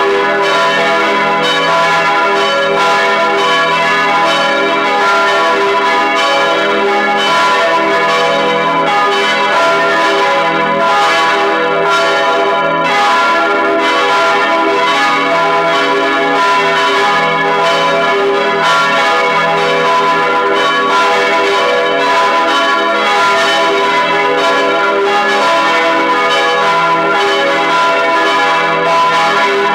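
Full peal of four swinging bronze church bells, tuned e′, g♯′, b′ and c♯′ and cast in 1949, heard close up in the bell chamber. Their strikes overlap into a steady, loud mass of long ringing tones.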